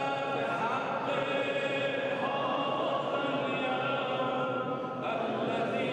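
Worshippers' voices chanting together in long held tones, the pitch gliding slowly.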